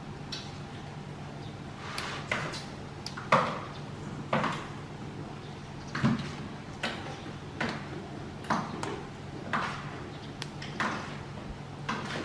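Fresh ambarella (sloek mkak) leaves being plucked and snapped off their stems by hand: a series of short, crisp snaps with leaf rustle, about one a second, starting about two seconds in.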